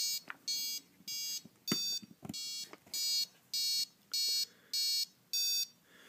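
Super Bee kill switch's piezo buzzer sounding a run of short, high-pitched beeps, about one every 0.6 s, as the unit signals its low-voltage cutoff setting after a dip switch change. A few small clicks come in the first couple of seconds.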